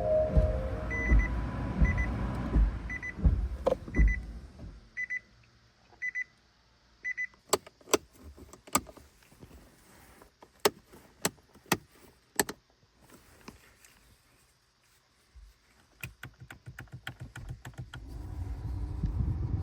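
Inside a 2013 Nissan Leaf, a short electronic chime beeps about once a second for several seconds over a low rumble. Then a run of sharp clicks follows, typical of switches and relays being worked as the car's controls are tested.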